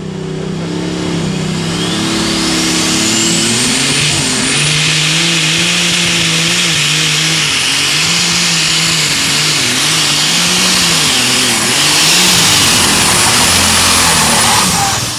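Light super stock pulling tractor's turbocharged engine at full power dragging a weight-transfer sled. A high turbo whistle climbs in pitch over the first few seconds and then holds, while the engine note rises and falls repeatedly through the pull. The sound drops off sharply near the end.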